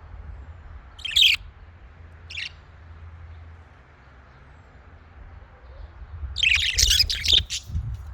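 Budgerigars chirping: one sharp call about a second in, a short one a little later, then a quick run of several chirps near the end.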